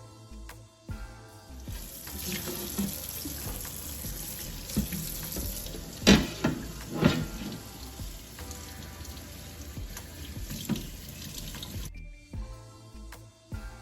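Kitchen tap running water into a sink for about ten seconds, then shut off, with two loud knocks of something hitting the sink about midway.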